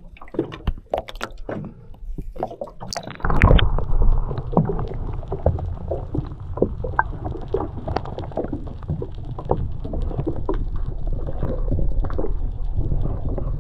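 Muffled water sound, as heard through a camera dipped under the surface: after a few light knocks, a low rumble thick with crackling clicks and bubbling starts suddenly about three seconds in.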